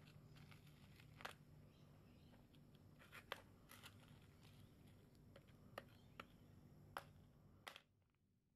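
Near silence: a faint low hum with scattered small clicks and crackles, the hum dropping away near the end.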